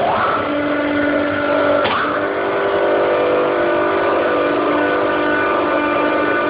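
Chiller compressor of a McQuay/Daikin EWLDJ235-SS running with a steady mechanical whine of several tones over a hiss. At the very start a tone sweeps quickly upward, and about two seconds in the set of tones shifts abruptly. The owner takes this as a strange sound from the compressor.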